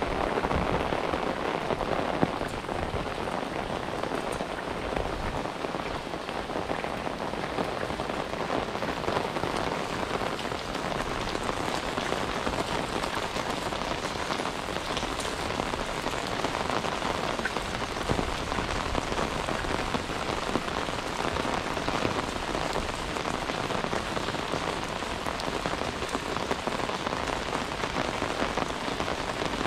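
Steady rain falling, an even hiss flecked with the fine ticks of individual drops.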